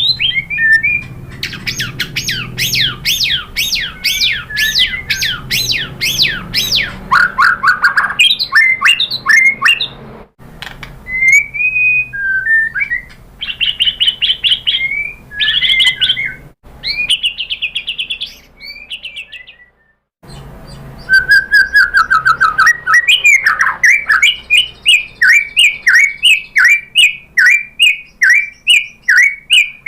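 White-rumped shama (murai batu) singing: rapid, loud runs of repeated down-slurred whistled notes in changing phrases, with a short pause about two-thirds of the way through before another fast run.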